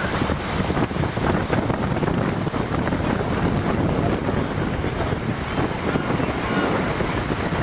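Wind buffeting the microphone, a steady rumble and hiss, over the rush of water from a boat on the move.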